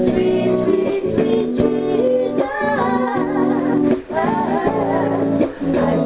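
A woman singing to a plucked string instrument playing steady chords; her voice stands out from about halfway through.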